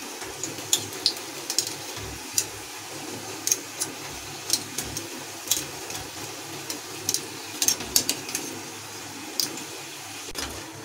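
Hot oil sizzling steadily as a flour-dough katori deep-fries in a kadai, with scattered sharp crackles and pops.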